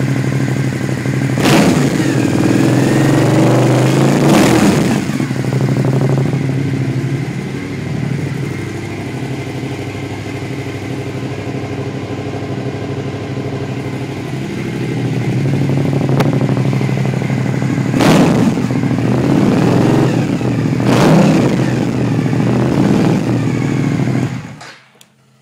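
Suzuki SV1000S V-twin running loud through an M4 full exhaust with titanium can, idling and blipped up sharply four times, then shut off near the end. It echoes off the walls of a closed garage.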